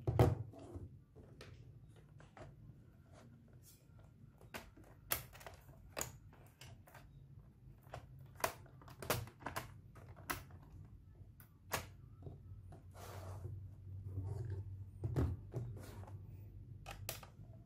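Irregular sharp clicks and knocks of an Acer laptop's plastic bottom case being handled and tapped on a table, with its battery removed; the loudest knock comes right at the start.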